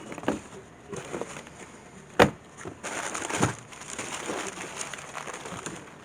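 Wood being worked by hand: one sharp knock on timber about two seconds in, then a second or so of scraping with another knock, and lighter handling noise after.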